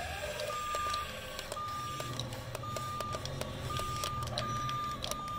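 Toy remote-control excavator driving on its tracks, its electronic warning beeper sounding about once a second, six even beeps, over the hum of its small electric motors and gears, with small clicks of gravel.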